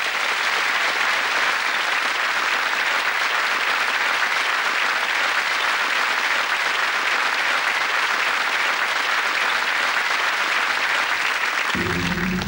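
Audience applauding steadily after an introduction. Just before the end the applause stops and low sustained music tones come in.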